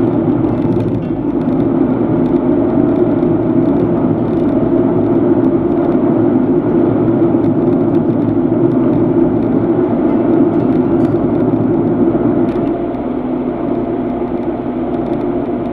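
Steady road and engine noise heard from inside a car's cabin while driving along a city road, with a faint whine that rises slightly in pitch. It eases a little near the end.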